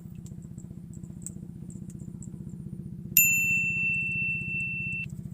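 A small engine running steadily with a rapid even pulse. About three seconds in, a single clear high-pitched ding rings out, fades, and cuts off shortly before the end.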